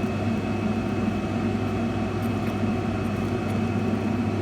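Steady mechanical hum with a thin high whine above it, unchanging throughout.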